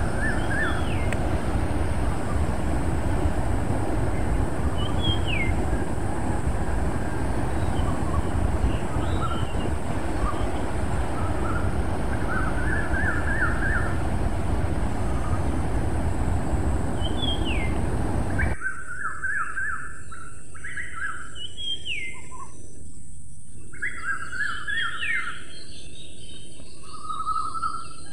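Small birds calling: repeated short falling whistles and brief rapid trills. For about the first two-thirds a steady low background rumble lies under them, then it cuts off abruptly and the birds are heard clearly.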